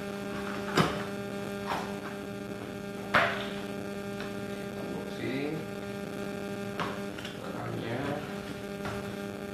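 Steady electrical hum, with a few sharp knocks and handling noises as a car battery's box is opened; the two loudest knocks come about one and three seconds in.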